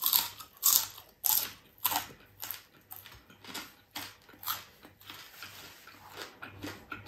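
A person chewing a mouthful of crispy fried galunggong (round scad), crunching about twice a second, loudest in the first couple of seconds and growing softer.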